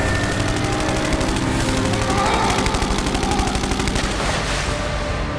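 Rapid automatic gunfire, a dense run of many shots a second, easing off slightly near the end.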